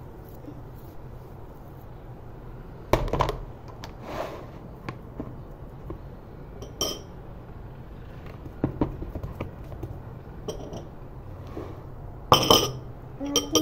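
A clear plastic storage box being handled on a worktop: scattered hard plastic knocks and clicks, about six, from the box and its lid, the loudest near the end.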